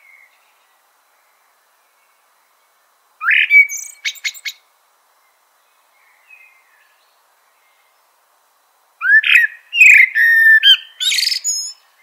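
Northern mockingbird singing in separate bursts of varied phrases: a short burst about three seconds in, a faint note around six seconds, then a longer run of several different phrases near the end, with silent gaps in between.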